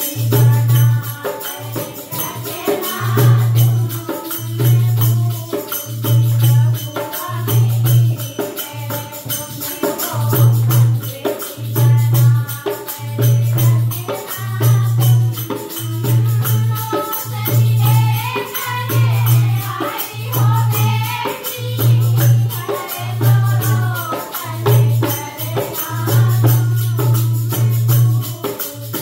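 A group of women singing a folk song together to a dholak drum and a jangling tambourine. The dholak keeps a steady deep beat about once a second under the voices.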